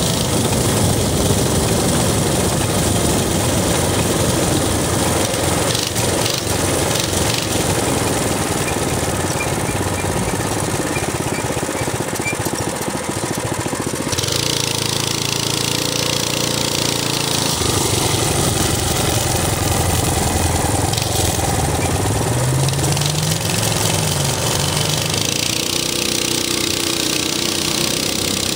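Minibike's small single-cylinder engine running while riding. About halfway through the engine note changes and settles lower, and a little later it briefly rises and falls in pitch.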